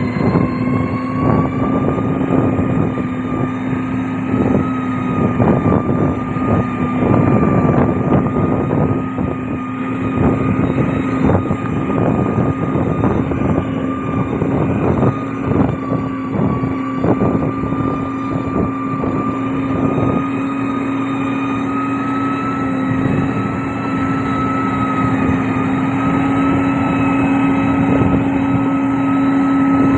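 Heavy diesel engine of a road construction machine running steadily at a constant pitch. Irregular crackles and knocks sound over it throughout.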